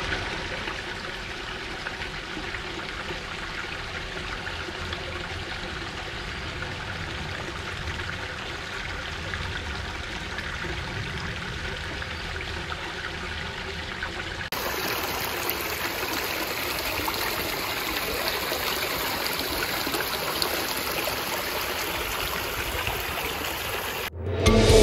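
Water of a small cascading backyard pond waterfall running steadily over its rock drops and splashing into the pond. About halfway through it turns brighter and hissier, as the water trickles down the rocky stream bed.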